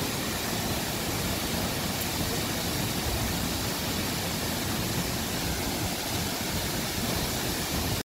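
Waterfall pouring into a rock pool: a steady, unbroken rushing of falling water.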